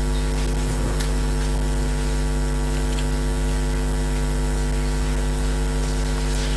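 Steady electrical mains hum, a low buzz with a stack of evenly spaced overtones, holding constant throughout, with a few faint ticks.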